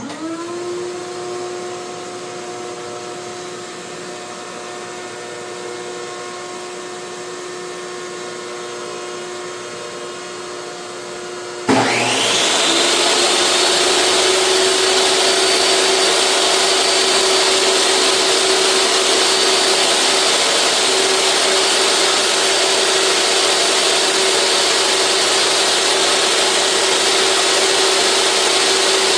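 A table saw motor spins up and runs at a steady pitch. About twelve seconds in, a much louder, noisier motor sound with a high whine that rises as it comes up to speed cuts in, and then runs on steadily.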